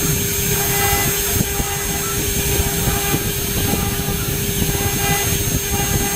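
CNC router engraving die steel: the spindle runs with a steady hum and a high whine over the dense, rough chatter of the cutter in the metal.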